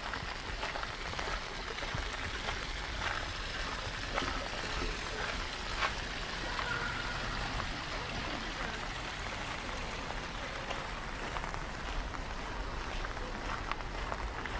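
Steady rain falling, with scattered sharp drop ticks through it.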